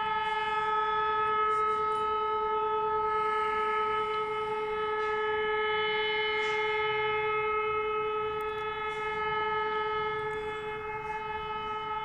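Civil-defence air-raid siren sounding a steady tone at one unchanging pitch, as a training alert.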